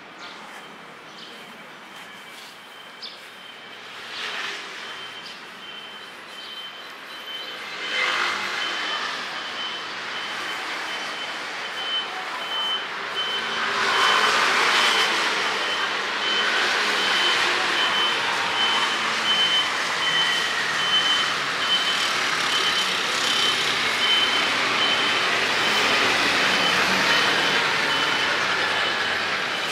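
A vehicle's reversing alarm beeping at a steady pace. Engine and street noise build up under it from about eight seconds in and are loudest from about fourteen seconds on.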